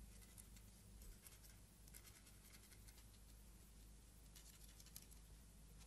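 Near silence: the faint hiss and low hum of an old film soundtrack, with scattered faint clicks.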